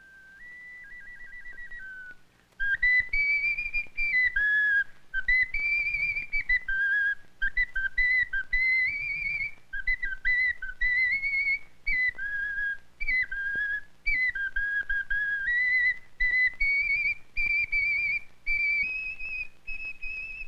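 Small pre-Columbian clay ocarina of the Guangala culture played as a tune: shrill, pure whistled notes stepping between a few pitches, some quick and short, some held. A softer held note comes first, and the louder playing starts about two and a half seconds in.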